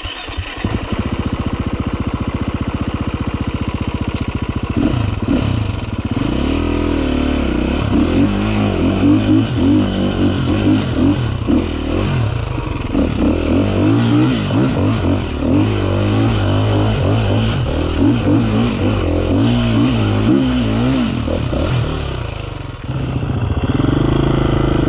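Dirt bike engine idling with a rapid, even beat for the first few seconds, then revving up and down unevenly as the bike is ridden. The engine note drops off near the end.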